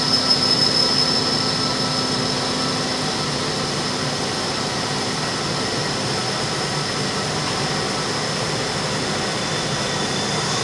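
CNC lathe running a machining cycle behind its closed door: a steady high whine over an even hiss of coolant spraying against the window.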